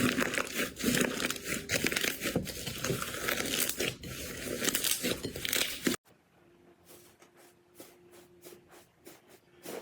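Slime being squeezed and worked by hand, a dense run of crackling and crinkling. About six seconds in it cuts off suddenly to a much quieter stretch of faint, scattered soft clicks.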